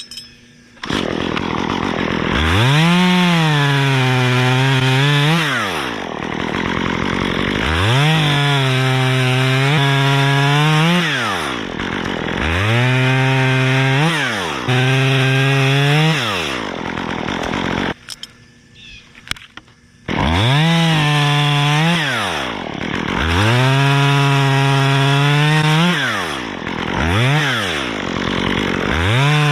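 Small two-stroke top-handle chainsaw cutting limbs off a dead white pine, revving up to full throttle, holding there through each cut, then dropping back, about seven times over, with a brief stop of about two seconds a little past the middle.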